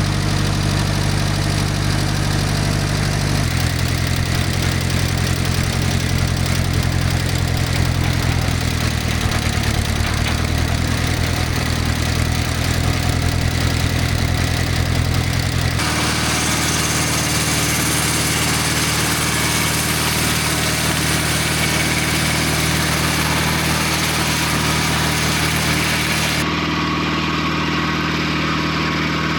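The engine of a portable circle sawmill running at a steady speed. Its note changes abruptly three times, about 3, 16 and 26 seconds in.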